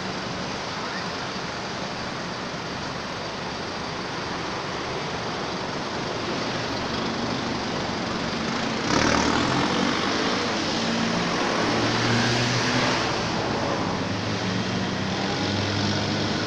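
Steady traffic noise from passing vehicles. About nine seconds in, a vehicle's engine hum comes in and the noise gets louder for several seconds.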